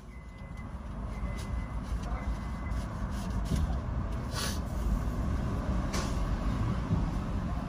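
Low rumble of a motor vehicle that grows louder, with faint short high beeps in the first few seconds and two sharp clicks later on.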